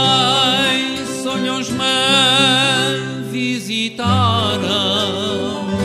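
A man's voice singing Coimbra fado, holding long drawn-out notes with wide vibrato over guitar accompaniment. A new sung phrase starts about four seconds in.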